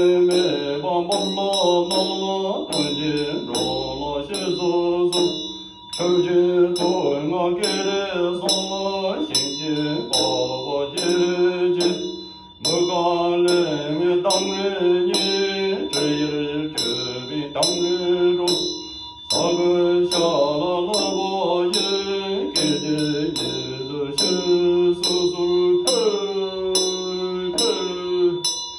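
Man chanting a Tibetan chöd liturgy in a melodic, sung chant, pausing for breath about every six seconds. A large two-headed chöd damaru drum beats steadily, about twice a second, and a Tibetan hand bell rings underneath.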